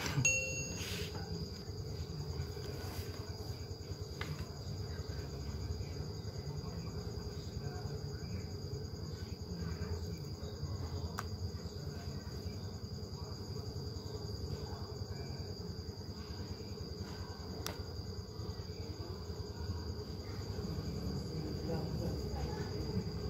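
Steady, high-pitched insect chirring from crickets, over a low, steady rumble. A short bell-like notification ding sounds right at the start.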